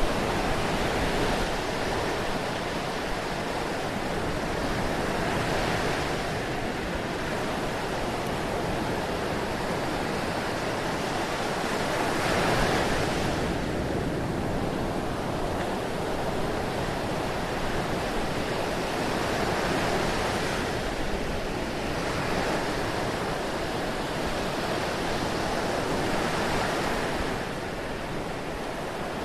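Ocean surf: waves breaking and washing in as a continuous rush that swells and eases every several seconds, the strongest swell about halfway through.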